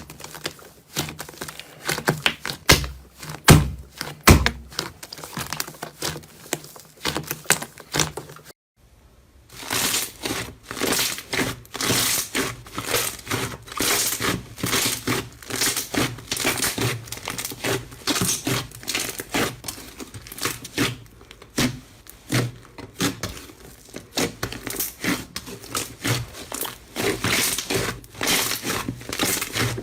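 Slime being squeezed and poked by hand, giving a dense run of crackling and popping clicks. It breaks off briefly about a third of the way in, then resumes more densely.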